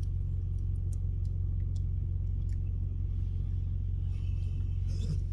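A steady low rumble that holds at one level throughout, with a brief faint higher sound about four to five seconds in.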